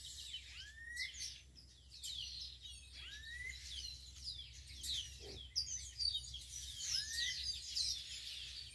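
Several small songbirds singing and chirping together in a chorus of quick high chirps and trills. One rising whistled note comes back about three times.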